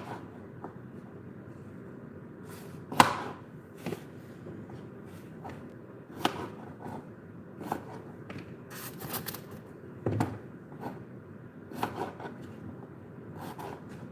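Irregular knocks, clicks and clatter of kitchen work, one sharp knock about three seconds in the loudest, over steady background noise.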